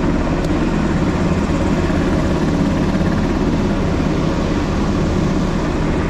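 Steady, loud drone of aircraft engine noise: a low hum with a broad rushing noise over it, unbroken throughout.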